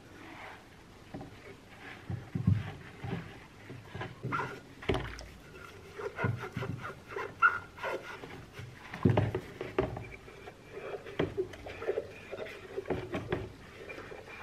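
A glass oil-lamp chimney being washed by hand with a sponge in a plastic basin of soapy water: irregular sloshing and splashing, with knocks of the glass and short squeaks as the wet glass is rubbed.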